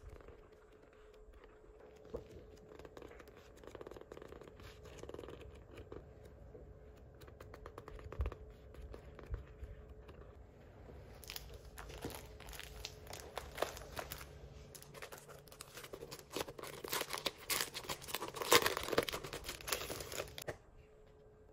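Paper pages being flipped and handled: soft rustling of collage paper sheets, then from about halfway a denser, louder crackling and crinkling as stiffer sheets are turned, which stops shortly before the end.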